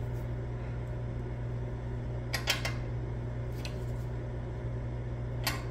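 Steady low hum of a bench spectrum analyzer's cooling fan and electrical equipment, with a few light clicks about two and a half seconds in and again near the end as the duplexer cavity's tuning nut is handled.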